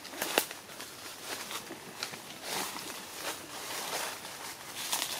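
Scattered rustling and crackling, with one sharp click about half a second in.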